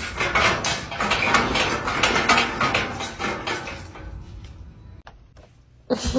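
Rapid, irregular clicking and clattering that fades away after about four seconds.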